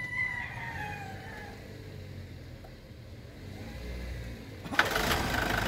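Toyota Innova's D-4D diesel engine cranking briefly and catching near the end, then running at a steady idle with a constant whine over it.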